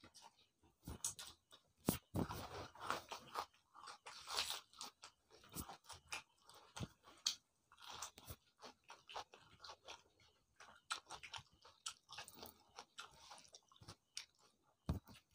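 Close chewing of mouthfuls of rice with chicken curry and dal, eaten by hand, with irregular crunches and clicks from the mouth throughout.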